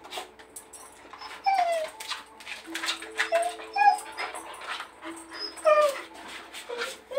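Australian cattle dog (blue heeler) whining: several short whimpers that fall in pitch, because she cannot reach her ball under the dresser. Between them come quick scrabbling clicks and scrapes as she paws under the furniture.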